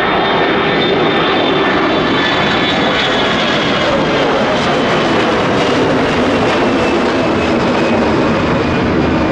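Airbus A321-200 jet departing, its twin engines at takeoff power: a loud, steady jet noise that holds level throughout.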